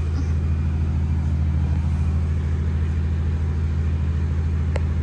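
Steady low engine-like drone that does not change, with one faint click near the end.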